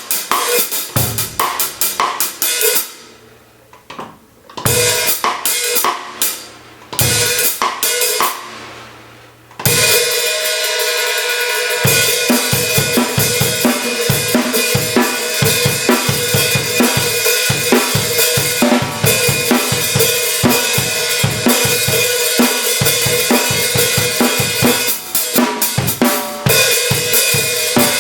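14-inch Zildjian K Mastersound hi-hats played with sticks, with kick and snare drum. A few seconds of quick strokes give way to a sparser passage of separate hits, and about ten seconds in a busy, continuous groove starts and carries on.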